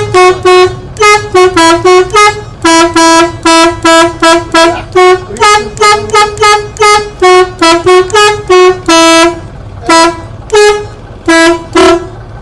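Telolet multi-tone bus horn played by its push buttons, sounding a quick run of short musical toots that switch between two or three pitches to make a tune, with a couple of brief pauses.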